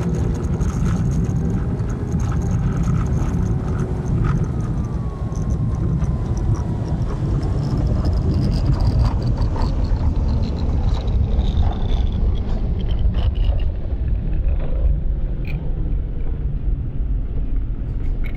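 Car engine running and tyres rolling on a wet gravel road: a steady low rumble with scattered small clicks, heard from inside the cabin.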